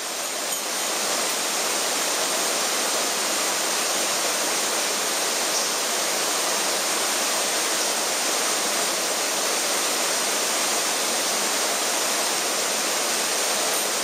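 Rushing water of a mountain stream, its rapids and small waterfall making a steady, even rush that rises over about the first second and then holds.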